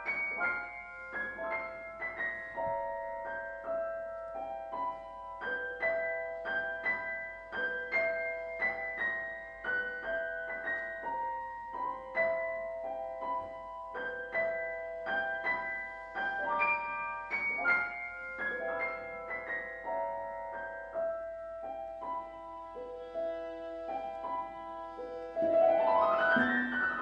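Background music: a piano playing a melody of single struck notes, with louder rising runs coming in near the end.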